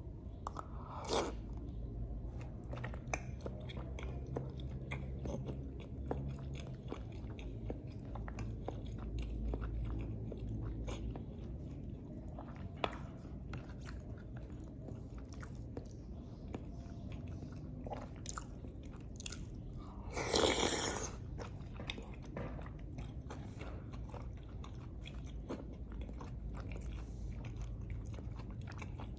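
Close-miked mouth sounds of a person eating lontong with green chilies: steady chewing and small wet clicks, with a louder crunchy bite about a second in and another, longer one around twenty seconds in.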